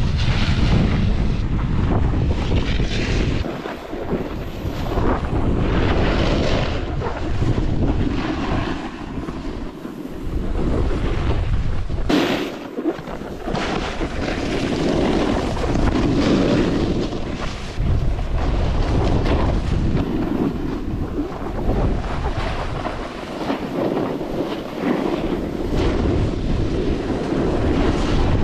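Wind buffeting the microphone during a snowboard run, with the snowboard's edge scraping and hissing over packed snow as it carves, the noise rising and falling in waves.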